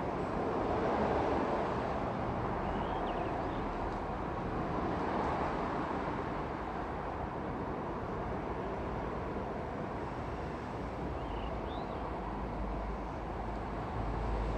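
Steady rumble of passing traffic around an open-air station platform, with two faint short high chirps, one about three seconds in and one later on.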